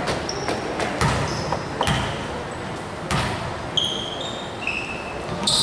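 Basketball bouncing on a gym floor, a few thuds about a second apart, with several short high sneaker squeaks on the hardwood in the second half, echoing in a large hall.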